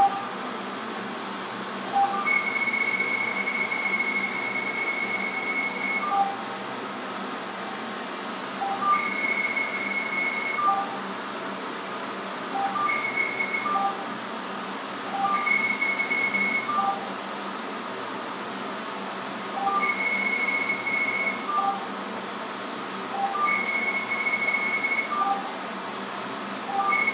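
Fractional CO2 laser firing over the face: a high steady beep sounds for each scanning pass, about seven passes from half a second to four seconds long, each opened and closed by short lower blips, over the machine's steady hiss.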